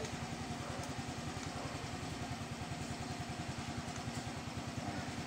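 Yamaha Mio Gravis scooter's single-cylinder four-stroke engine idling steadily, with a fast, even putter.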